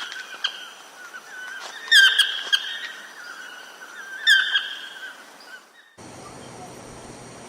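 Wild animal calls: a steady high chorus with loud, sharp bird-like calls about two and four seconds in. About six seconds in it cuts to a different, even high drone.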